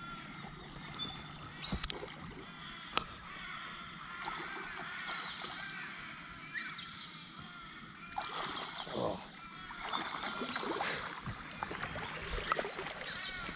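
Birds chirping along the river over light water and boat noise, with a couple of sharp knocks in the first few seconds. A hooked Murray cod splashes at the surface near the end as it is played to the boat.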